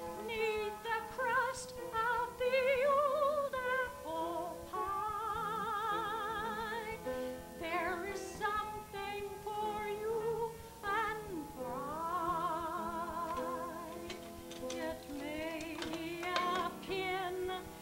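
An elderly woman singing solo, holding long notes with a wide, wavering vibrato, with short breaths between phrases.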